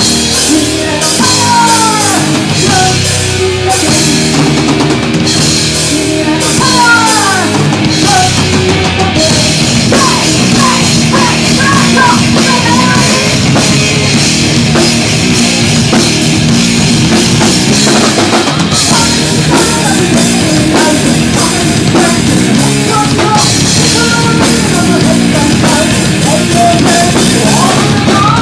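Thrash metal band playing live at full volume: distorted electric guitars, bass and a pounding drum kit with crashing cymbals.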